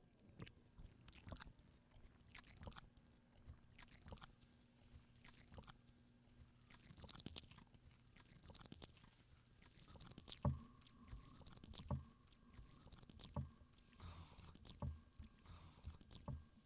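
Near silence broken by faint, irregular clicks and knocks from handling things at a computer desk, the most distinct a little over ten seconds in.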